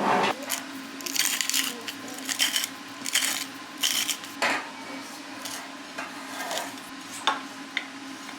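Irregular clinks, knocks and rustles of dishes and cutlery being handled, over a steady low hum.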